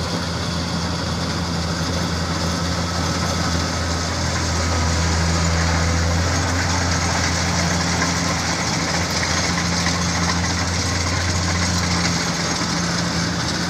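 Diesel farm machinery running steadily with a low engine drone, a little louder around five to eight seconds in, as a Kubota combine harvester works the rice field.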